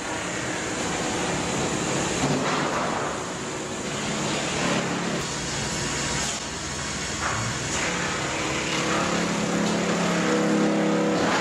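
An engine-powered machine running hard, a dense steady mechanical noise over a steady engine note that grows louder over the last few seconds.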